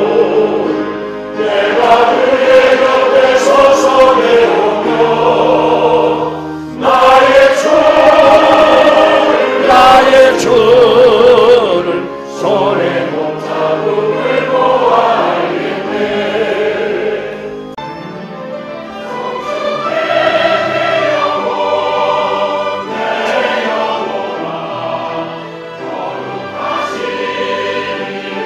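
Church choir singing a hymn, with sustained accompaniment underneath; the singing is loud at first and softer in the second half.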